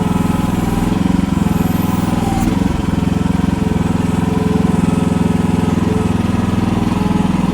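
Chinese mini excavator's small engine running steadily as the machine works at climbing a soft dirt bank, with a brief dip and a short knock about two and a half seconds in.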